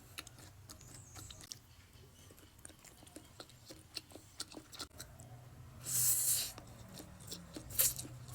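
A person eating instant noodles: soft chewing and small mouth clicks, with two brief, loud hissing bursts, one about six seconds in and a shorter one near the end.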